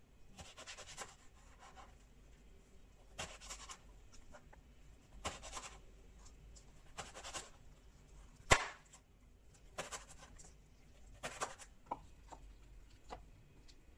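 Chef's knife slicing an eggplant into rounds on a wooden cutting board, a short crisp cut every second or two. One sharp knock, the loudest sound, comes about eight and a half seconds in.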